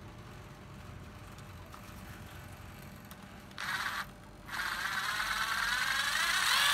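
Hitachi 12V cordless screwdriver motor: a short blip about three and a half seconds in, then it runs again with its whine climbing in pitch and loudness as the variable-speed trigger is squeezed further.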